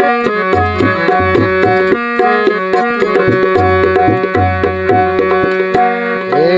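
Instrumental interlude of Indian folk devotional music: a tabla rhythm of deep bass strokes and sharp treble strokes under a sustained, many-toned melody line.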